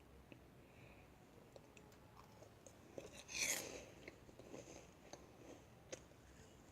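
A meringue cookie bitten with a single short, crisp crunch about three and a half seconds in, and a few faint clicks either side.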